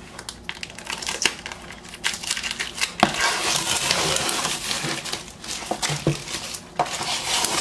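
Packing tape and the cardboard tear strip being ripped off a cardboard vinyl record mailer: scattered scratches and clicks, a sharp snap about three seconds in, then several seconds of steady tearing and crinkling.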